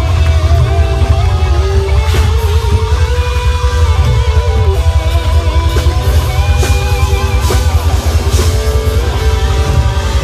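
Live rock band playing loud: electric guitars over heavy bass and a drum kit with cymbal crashes, and a wavering, bending lead melody on top.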